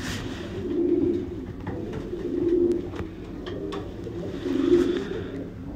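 Racing pigeons cooing, their low coos swelling up three times, with scattered light clicks among them.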